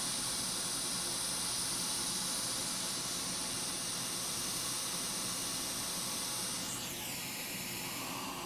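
A blower runs with a steady airy hiss. Nearly seven seconds in it spins down with a falling whine, and the hiss drops to a lower level.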